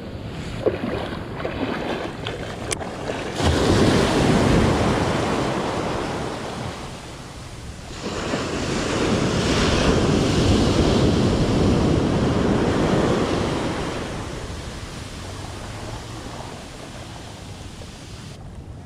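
Ocean surf washing in around the feet in shallow water, swelling twice and ebbing back, with wind on the microphone.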